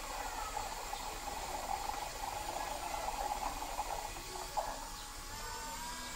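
Cordless drill running under load as its bit grinds a hole through the base of a frying pan: a steady whine with a gritty hiss, the pitch shifting a little about five seconds in.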